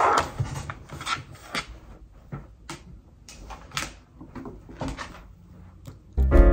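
Scattered clicks and light knocks of hands tapping the keys of a computer keyboard and handling a white box. Piano music starts near the end.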